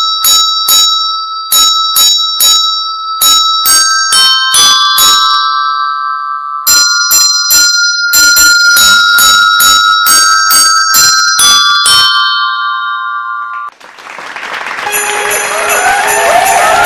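A tune played in struck, ringing bell-like notes, a few notes a second and growing busier about halfway through. It stops suddenly and a crowd starts cheering and screaming near the end.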